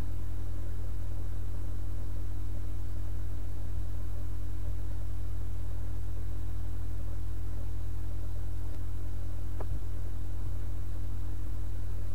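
Steady low hum with one faint click about nine and a half seconds in.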